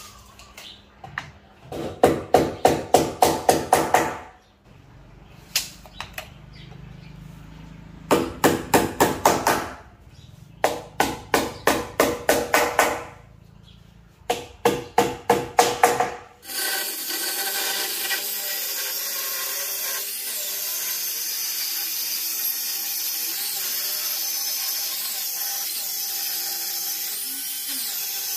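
Hammer driving nails in four quick runs of strikes, about four a second, fixing a cutting guide to the board. About sixteen seconds in, a handheld electric circular saw starts and runs steadily with a high whine.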